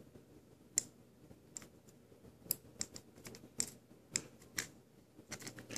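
Scissors blades snapping shut on fishing line again and again: about ten sharp clicks at uneven intervals, without the line yet cut through.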